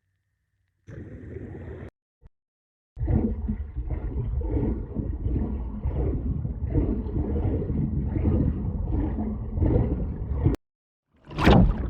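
Separate water sound effects with hard gaps between them: a one-second snippet, then about seven seconds of heavy, low bubbling and gurgling water with an irregular pulse, cut off abruptly; near the end a brief whooshing burst swells and fades.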